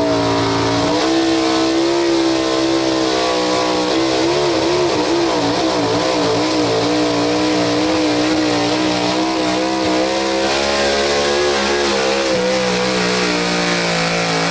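Pro stock 4x4 pulling truck's engine running at full throttle under heavy load. Its pitch holds high and steady, wavering up and down through the middle as the revs fluctuate.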